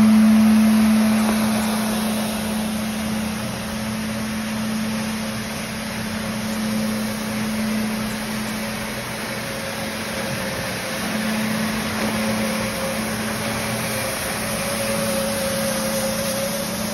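Tennant T7 ride-on floor scrubber running as it scrubs concrete: a steady motor hum with a fainter, higher whine over the even noise of the brushes, vacuum and squeegee.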